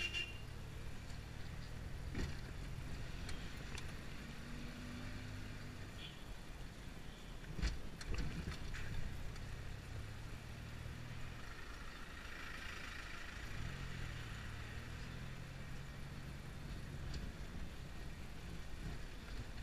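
Small taxi car's engine running, heard from inside the cabin, its hum shifting in pitch every few seconds as it drives. A few loud knocks and rattles come about eight seconds in.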